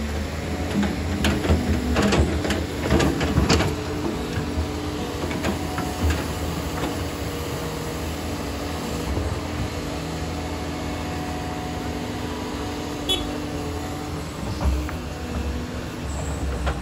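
A heavy construction machine's diesel engine running steadily, with a cluster of sharp metallic knocks and clanks in the first few seconds.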